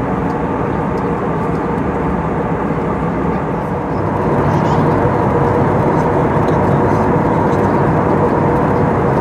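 Steady cabin noise of an Airbus A320neo in descent, heard from a window seat over the wing: the rush of engines and airflow with a faint steady hum, growing a little louder about four seconds in.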